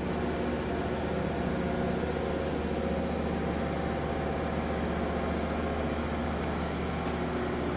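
Steady drone of a ship's engine-room machinery: a constant hum with several steady low tones over a broad, even rushing noise.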